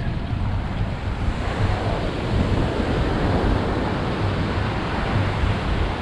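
Ocean surf washing onto a sandy beach, a steady rush of noise that swells about two seconds in, with wind rumbling on the microphone.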